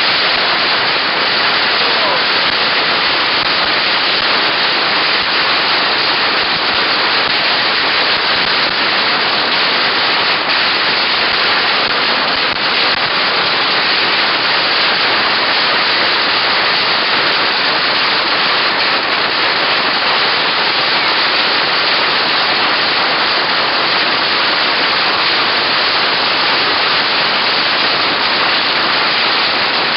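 Long hanging strings of Chinese firecrackers going off in a dense, unbroken crackle.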